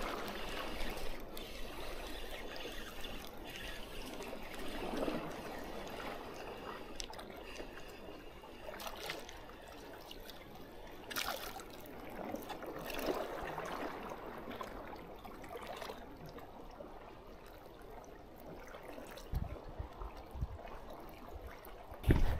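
Seawater sloshing and trickling among breakwater rocks, swelling every few seconds, with a few low bumps near the end.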